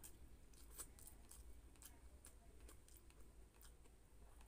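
Near silence with faint, irregular eating clicks from chewing and from fingers picking at fish flesh.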